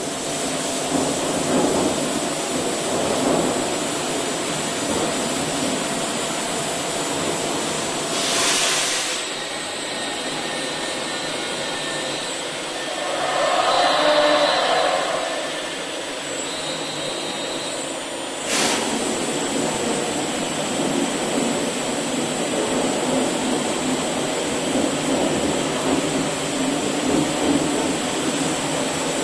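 Automatic brush satin-finishing machine running, its motor-driven abrasive brush wheels working a metal aircraft fitting with a steady whooshing drone. There is a short hiss about a third of the way in, a louder swell around the middle, and an abrupt change in the noise about two-thirds through.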